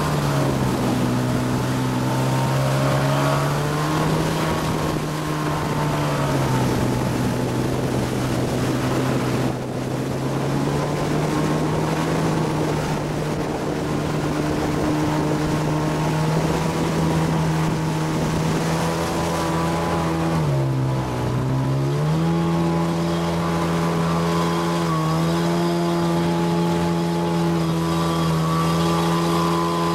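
Motorboat engine running while towing, its engine speed sagging and picking up again about three times, over rushing wind and water noise.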